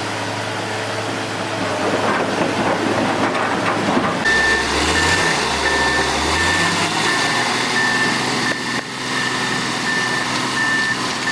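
Excavator engine running, with a back-up alarm starting about four seconds in and beeping steadily, roughly one beep every 0.7 seconds.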